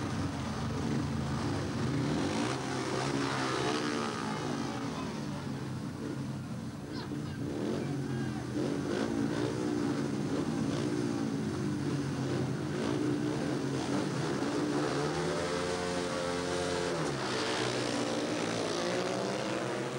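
Four speedway bikes' 500cc single-cylinder methanol engines revving together, their pitch rising and falling as the riders rev up at the starting gate. They then accelerate away into the race.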